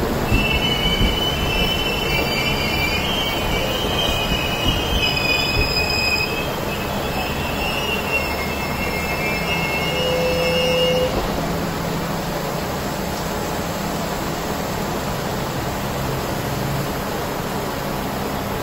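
Humsafar Express passenger coaches rolling slowly through the station, their wheels squealing in high, wavering tones for the first ten seconds or so, then a steady rolling rumble.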